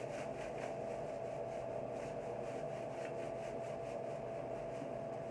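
Steady mechanical fan hum with one constant mid-pitched tone, under faint quick rubbing of hands working shampoo through a wet, double-coated dog's fur.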